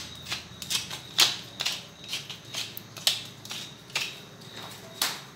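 Wooden pepper mill being twisted by hand, grinding black peppercorns in a run of short, crunchy, ratcheting strokes at about two a second.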